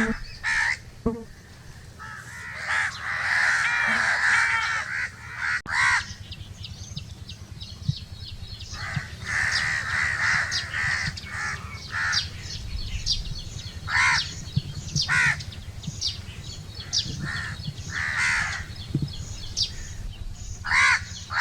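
A large flock of crows cawing, many calls overlapping. The calls thicken into a dense clamour about two to five seconds in and again around nine to eleven seconds, with single caws between.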